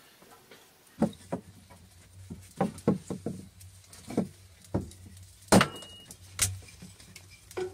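A series of about a dozen irregular knocks and clacks, as of hard objects being handled or struck, the loudest a little past the middle, over a low steady hum that starts about a second in.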